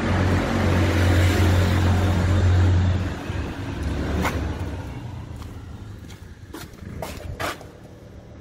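A car driving through a concrete tunnel, its engine and tyre rumble echoing off the walls, loud for the first three seconds and then fading away. A few short sharp clicks come in the second half.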